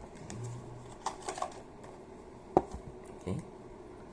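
Thin plastic protective wrap crinkling, with scattered small clicks and crackles, as it is peeled off a new smartphone. The sharpest click comes about two and a half seconds in.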